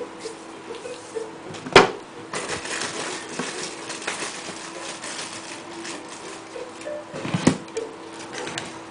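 Two sharp clicks, one about two seconds in and one near the end, with a crackling hiss between them, over faint background music.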